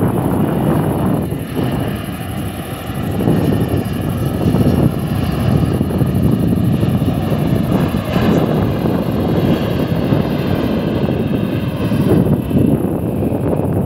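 Airbus A319 jet engines during landing and rollout: a steady jet rumble with a faint whine, growing louder about four seconds in.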